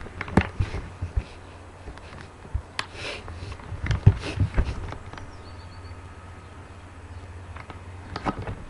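Handling noise: irregular knocks and clicks as the camera is moved about on metal scaffolding, over a low steady hum.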